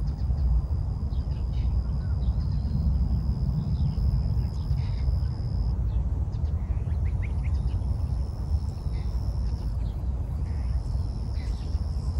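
Outdoor park ambience: a steady low rumble under a thin, continuous high insect trill that cuts out twice and resumes, with scattered short bird calls.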